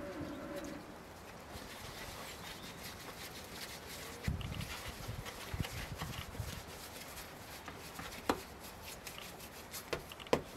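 Hands shaping balls of soft dough on a floured wooden board: quiet pats and rustles with a few soft thumps, and a couple of sharper clicks in the second half.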